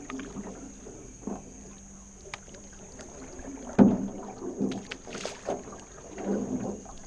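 Canoe paddling: paddle strokes dipping and splashing in the water at irregular intervals, with a sharp knock about four seconds in.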